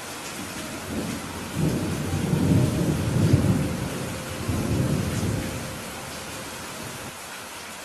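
Heavy rain falling steadily as a peal of thunder rumbles in about a second and a half in, rolling in a few swells for around four seconds before dying away.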